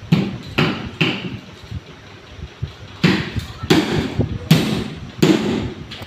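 Steel pipe and metal tools knocking and clanking at a workbench as a pipe is worked: about seven sharp knocks at irregular intervals, each ringing briefly.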